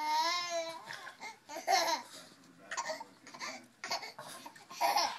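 Baby of about seven months laughing in short repeated bursts, opening with a long wavering high squeal.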